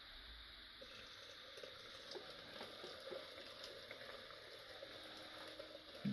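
Freshly boiled water poured from an electric kettle into a plastic pot of dry ramen noodles: a faint, steady pouring that picks up about a second in.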